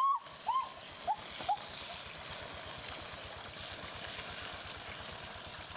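A stream running with a steady hiss. A bird chirps a few short times in the first second and a half.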